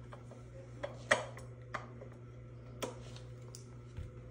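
Sharp metallic clicks and clacks of a Beretta SL3 over-and-under shotgun being put together, its parts seating against each other. About six separate clicks, the loudest about a second in.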